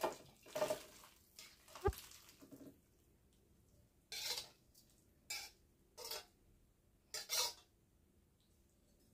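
A metal spatula scrapes and knocks against a wok as cooked tofu and green beans in sauce are tipped out into a glass baking dish. It comes as a series of short scrapes and clinks, with a sharp knock about two seconds in and single scrapes a second or so apart after that.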